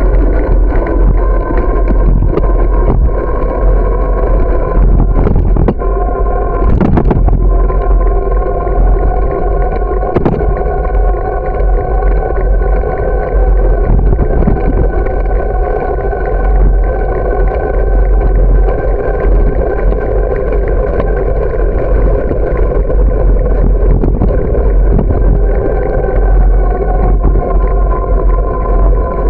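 Riding noise of a bicycle on a paved path as heard on a bike-mounted camera: a loud, steady rumbling hum with a constant whine over it, wind on the microphone, and frequent knocks from bumps in the pavement, the biggest about seven and ten seconds in.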